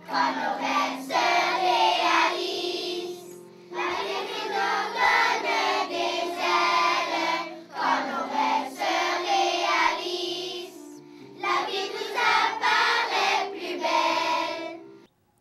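A class of schoolchildren singing together as a choir, in long phrases with short pauses between them.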